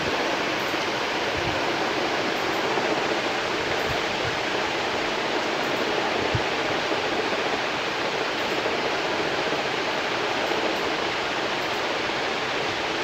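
Steady, even rushing noise with no pitch, with a few faint low knocks.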